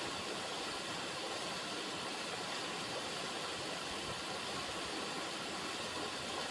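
River water running: a steady, even rushing with no change.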